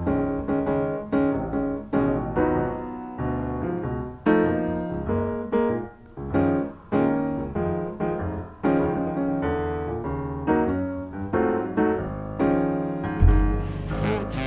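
Background music: piano playing a run of struck notes and chords. Just before the end a deep bass sound comes in as the music changes.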